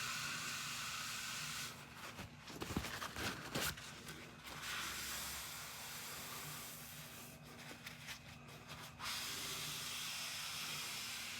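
Faint rubbing hiss from a damp rag wiping squeezed-out construction adhesive off the trim and wall, in long strokes with short pauses and a few light knocks a few seconds in.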